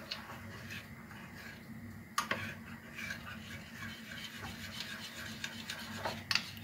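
A long-handled spoon stirring milk and rice for rice pudding in a pot, a soft steady scraping, with a light knock about two seconds in and another near the end.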